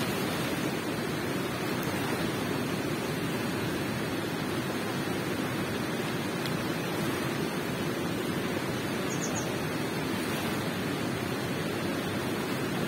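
Water flowing in a cave: a steady, even rush with no breaks.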